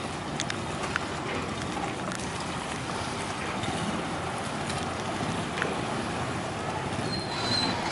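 Steady running noise of a small river vehicle ferry's engine as the loaded ferry pulls away from the bank, with a few faint clicks and a brief high tone near the end.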